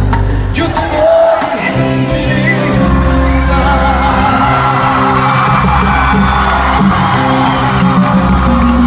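Live salsa band with a lead singer, recorded from the audience in a large hall. The bass drops out briefly about a second in, then the full band comes back in under the singing.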